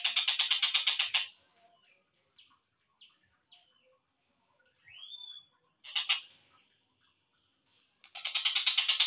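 Tengkek buto kingfisher calls, slowed down: a fast rattling trill for about a second, then a few scattered short notes and one rising call. A second long rattling trill starts near the end.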